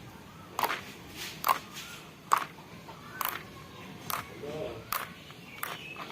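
Clear slime mixed with makeup being squeezed and stretched by hand, giving sharp sticky clicks about once a second.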